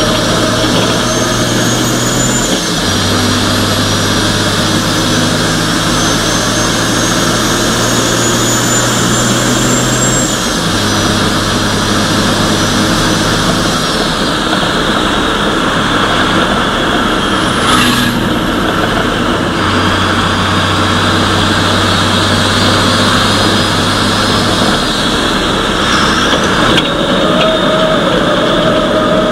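Race truck's diesel engine heard from inside the cab, pulling hard and changing up and down through the gears. A high whine climbs slowly with speed and drops away several times as it lifts off. A single sharp knock comes about two-thirds of the way through.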